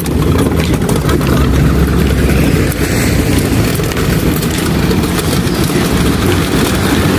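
Small wheels of a loaded flatbed hand cart rolling over rough asphalt: a steady low rumble with a gritty rattle.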